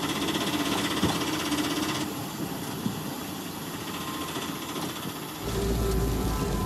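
Auto-rickshaw engine running steadily. It thins for a few seconds, then a heavier low rumble comes in about five seconds in.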